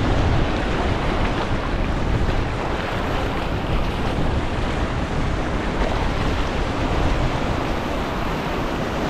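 Ocean surf washing and foaming over shoreline rocks, a steady rushing, with wind rumbling on the microphone.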